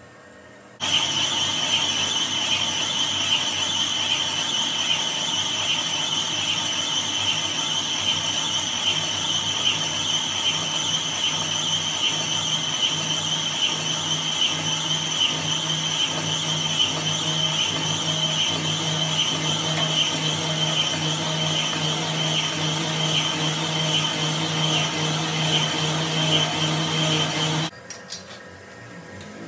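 Metal lathe running steadily, with a continuous high-pitched squeal from the tool working the metal. It starts abruptly about a second in and stops abruptly near the end.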